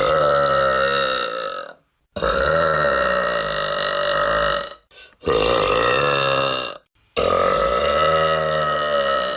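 A person belching loudly four times in a row, each a long drawn-out burp of about two seconds with a wavering pitch. The first is already going as the sound begins, and short silences separate them.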